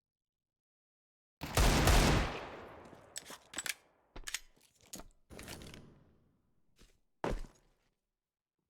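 A series of loud bangs: one big blast about a second and a half in with a long fading tail, then a run of sharper cracks and a last strong bang near the end.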